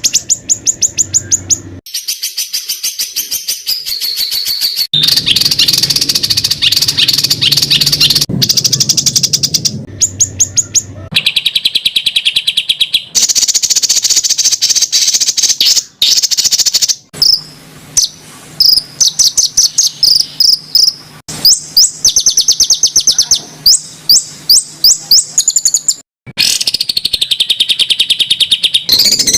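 Spliced recordings of songbirds giving fast, harsh runs of sharp repeated high notes, many per second, with the passage switching abruptly every few seconds. This is a masteran tutor track of rough 'tembakan' (shot) phrases used to train competition songbirds.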